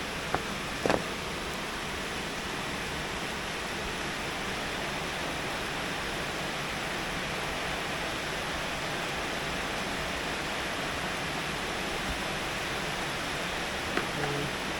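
Heavy rain falling in a steady, even hiss, with a couple of sharp clicks about a second in.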